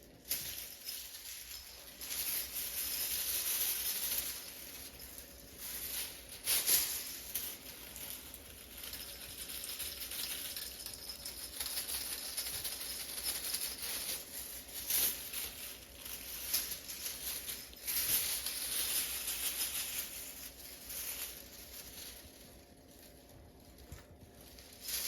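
Irregular rustling and scratching from cats playing, swelling and fading, with a few short louder bursts of scuffling.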